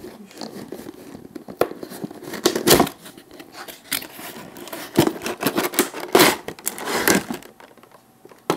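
Clear plastic blister packaging crinkling and crackling in several irregular bursts, with sharp clicks, as it is handled and slid out of its box.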